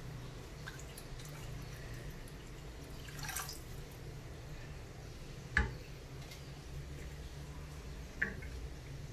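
Water poured from a plastic measuring jug into a steel pot of rasam, splashing and dripping, over a low steady hum. A sharp knock of the wooden spoon against the steel pot a little past halfway, and a lighter one near the end.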